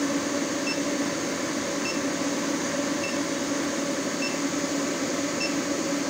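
Induction forge running under load as it heats a 1-inch round steel bar: a steady electrical hum with fan-like noise from the machine and its cooling unit. A short high beep repeats about every second and a quarter.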